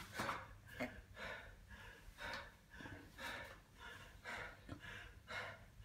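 Rapid, heavy breathing of a person out of breath from hard exercise, faint, with short gasping breaths about two a second.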